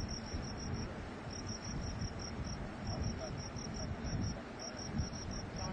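Steady low rumble of a burning gas pipeline fireball, with a cricket chirping over it in fast, even pulses, about seven a second, in runs broken by short pauses.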